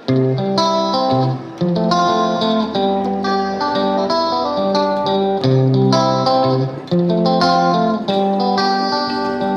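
Background music led by a plucked guitar, playing a melody of short notes over a bass line.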